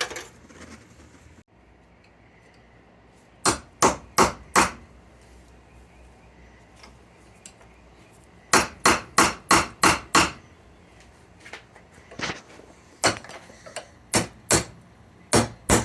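Hammer blows on steel in quick runs of four to six, with pauses between, striking to drive a wheel bearing's inner race that is seized on a Honda Civic front hub.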